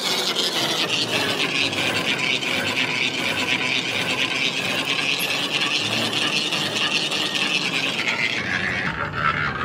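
Manual lathe cutting the hub face of a large spoked gear blank: a steady rasping scrape of the tool on the metal, with a fast ticking texture. The scrape drops lower in pitch near the end.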